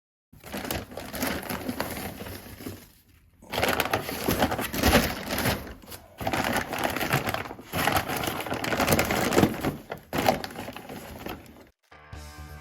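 Crunching and scraping of building rubble being worked by hand, in four stretches separated by short pauses.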